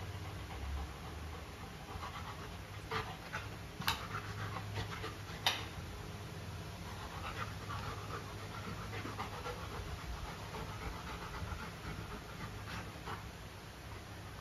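Golden retriever panting with her mouth open, with a few sharp clicks a few seconds in, the loudest about five and a half seconds in.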